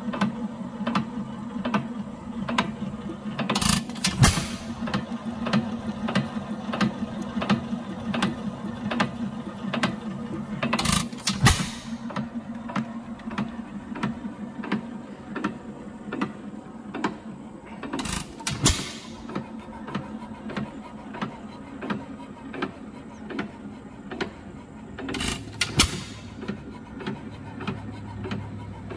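A century-old single-cylinder hit-and-miss engine running. Its valve gear and governor click steadily while it coasts, and about every seven seconds it fires a louder hit of two or three quick exhaust bangs before coasting again.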